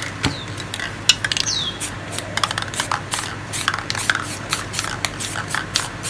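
Aerosol spray paint cans sprayed in many short quick bursts, with small clicks and clinks of the cans between them.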